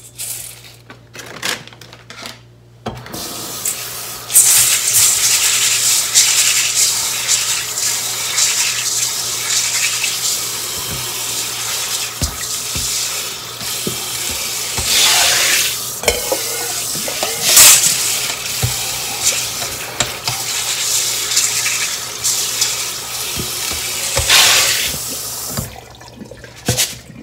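Azuki beans clicking in a stainless steel bowl for the first few seconds. From about three seconds in, a kitchen tap runs into the bowl while the beans are swirled and rinsed by hand, with a few louder surges of splashing. The water stops near the end.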